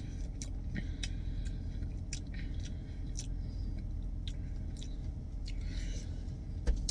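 A person chewing a mouthful of watermelon: irregular wet clicks and smacks of the mouth, over a steady low hum.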